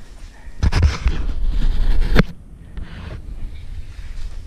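Mountain bike rattling and knocking over roots and rough ground on a wet, muddy trail for a couple of seconds, then rolling on with tyre noise and wind on the microphone.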